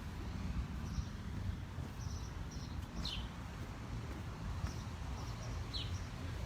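Steady low rumble of wind and surf on an open beach, with short high bird chirps every second or so, a couple of them sharply falling in pitch.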